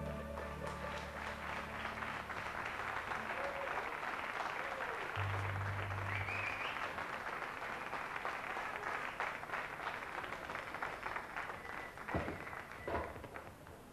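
Studio audience applauding at the end of a song, the last sustained chord dying away in the first second. The clapping thins out toward the end, with a short low bass note and a brief whistle around the middle.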